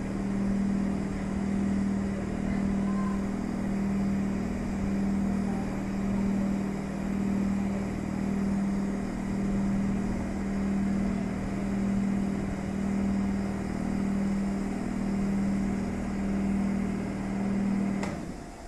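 E656 'Caimano' electric locomotive standing still, its machinery humming steadily with a slow beat that swells about once a second. The hum cuts off near the end.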